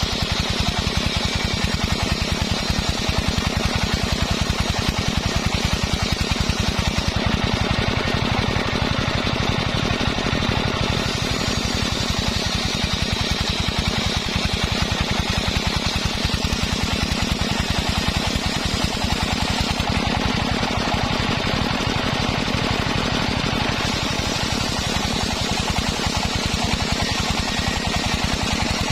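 Homemade circular sawmill machine running steadily, its engine giving a rapid, even pulse under a constant hiss.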